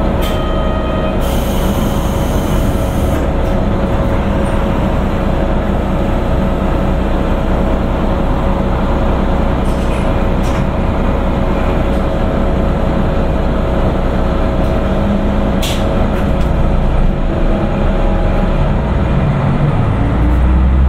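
Diesel railcar's Niigata-built engine running steadily, a low drone with a steady hum and a few light clicks; the low note shifts in pitch near the end.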